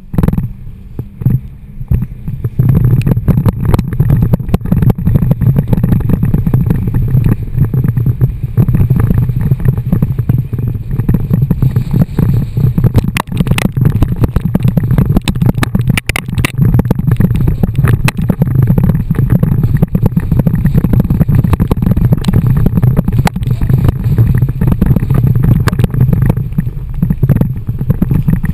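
Muffled rush of wind and spraying water against an action camera's waterproof housing on a bumper tube towed at speed over the sea, thick with knocks and splashes. It starts suddenly and builds over the first couple of seconds.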